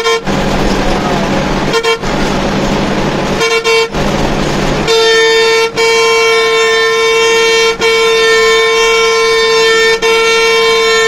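Bus horn honking: three short toots, then from about five seconds in a long held blast broken briefly three times, over the coach's engine and road noise. The horn is used to warn the bus ahead before overtaking it.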